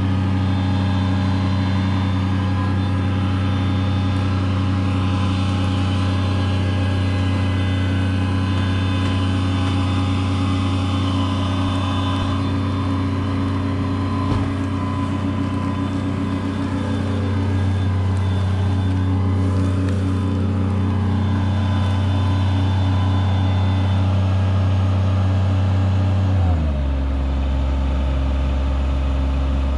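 Mini track loader's engine running steadily at high throttle while it drags a heavy load on a rope. About 26 seconds in, the engine drops to a low idle.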